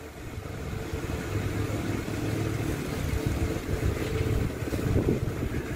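An engine running steadily: a low rumble with a faint steady hum.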